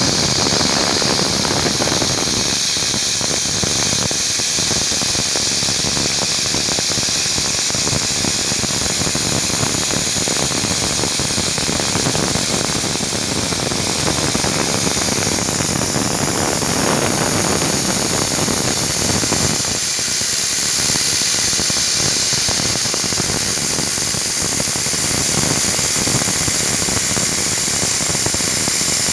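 Romi Interact CNC milling machine running, milling a thrust-bearing ball cage: a steady, loud, high-pitched hiss and whine from the spindle and cutting.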